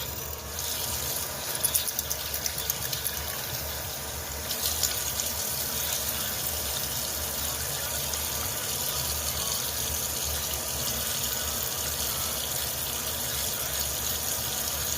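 Water running steadily, with a few sharp knocks about a second and a half in; the flow gets a little louder about four and a half seconds in.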